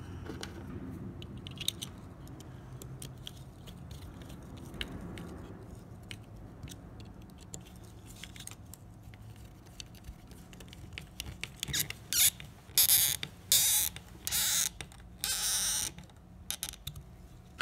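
Small screwdriver turning the tiny screws that hold down an optical encoder's cover, at first with only faint clicks. Near the end come about five short, loud, high-pitched squeaks and scrapes as the screws are driven home.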